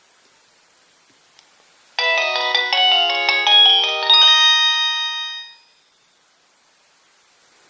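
Nokia 3220 mobile phone playing a short polyphonic ringtone through its speaker: a quick run of chiming notes starting about two seconds in, ending on a held chord that fades out about three and a half seconds later.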